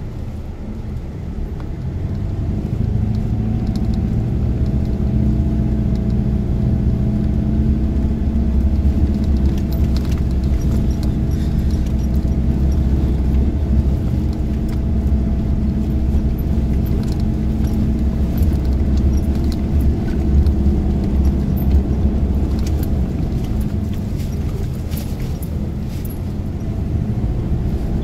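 Four-wheel drive's engine running at steady revs while driving along a dirt track, heard from inside the cab, with a low rumble and scattered clicks and rattles. It grows louder over the first few seconds.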